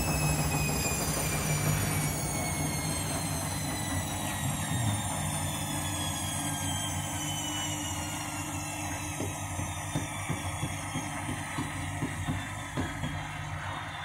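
Candy front-loading washing machine winding down from its final spin. The motor and drum whine falls steadily in pitch and fades. From about nine seconds in, irregular light clicks join it as the drum slows.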